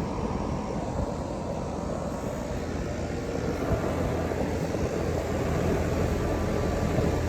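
Outdoor central air-conditioner condensing unit running: a steady rush of air from the large condenser fan over a low compressor hum, growing slightly louder over the last few seconds.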